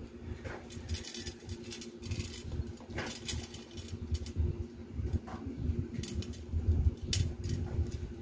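Handling noise of a plastic bottle and small stones: scattered light clicks and taps with low bumps, over a steady low hum.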